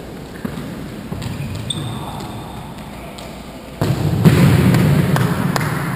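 Indoor five-a-side football in a sports hall: ball knocks and thuds on the hard floor, with a short high squeak about two seconds in, likely from a shoe. Nearly four seconds in, a much louder rush of noise starts suddenly and runs to the end, with a couple of sharp knocks in it.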